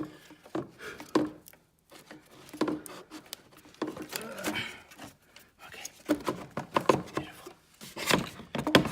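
Scattered clicks, knocks and rubbing as an intake hose is worked loose and pulled out of a car's engine bay, in short irregular bursts with quiet gaps between.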